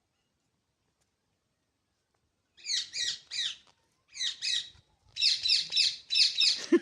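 Indian ringneck parrot (rose-ringed parakeet) chirping in short, high, repeated calls, starting about two and a half seconds in. The calls come in small groups of two or three, then run together in a quicker series near the end.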